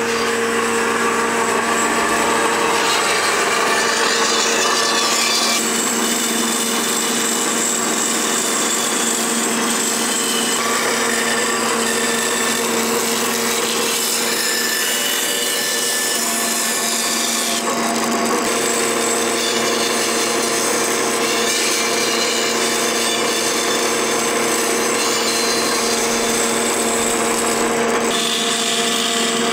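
Large old wooden-framed band saw running and cutting purpleheart hardwood: a steady motor hum under the hiss and rasp of the blade going through the wood, changing abruptly a few times.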